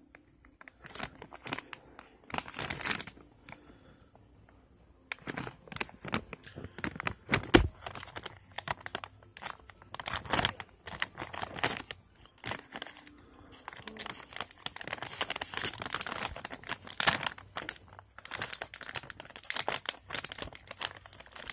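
Packaging of compressed towels crinkling and tearing as it is handled and opened: irregular crackles with a pause of about two seconds a few seconds in.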